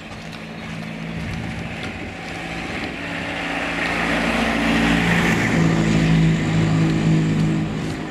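A motor vehicle passing close by on the road. Its engine hum and tyre noise build to a peak about six seconds in, then ease off.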